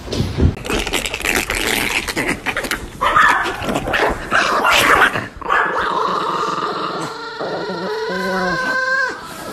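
Small dogs vocalising: sharp, noisy sounds in the first half, then a long cry that wavers up and down in pitch from about six seconds in.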